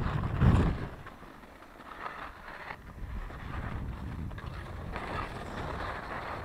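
Skis scraping over packed, bumpy mogul snow: a rough, uneven hiss that is loudest about half a second in, then eases.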